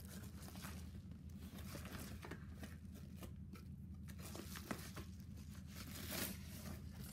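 Yellow padded paper mailer envelope crinkling and rustling in hands as a box is worked out of it, in a scatter of small crackles, with a louder rustle about six seconds in.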